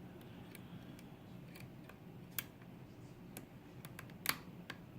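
Lock pick working the pins of a pin-tumbler challenge lock under light tension: small, sharp metallic clicks at irregular intervals, the loudest two about two and a half and four and a quarter seconds in.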